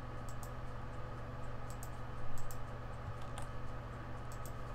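A few computer mouse clicks, mostly quick double ticks, over a steady electrical hum, with one brief thump a little past halfway.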